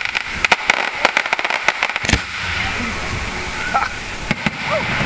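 Aerial fireworks bursting: a rapid run of sharp bangs and crackles in the first two seconds, one louder bang about two seconds in, then a lull and a few more bangs near the end.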